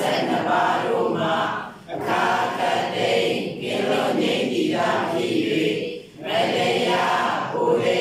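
A group of voices chanting together in unison, devotional chanting, in long phrases broken by short breaths about two seconds and six seconds in.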